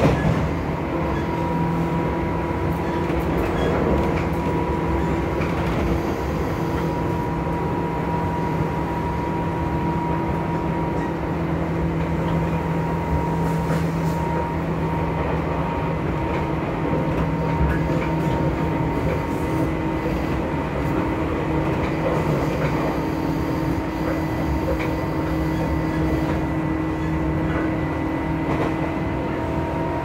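Interior running sound of a Tobu 9000 series armature-chopper electric train, heard from inside a motor car while it runs along the line. The rail rumble carries steady humming tones from the chopper control and traction motors, which weaken for a few seconds in the middle and then come back.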